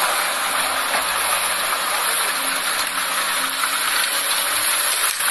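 Heavy machinery working: a large hydraulic excavator's diesel engine running as it digs, heard as a steady rushing hiss over a faint low hum.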